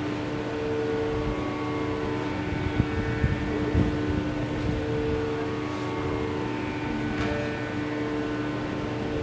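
Indian classical ensemble of bowed violins with sitars and flutes playing a slow passage of long held notes over a steady lower note, the upper notes changing every second or so. A few low thumps come about three to four seconds in.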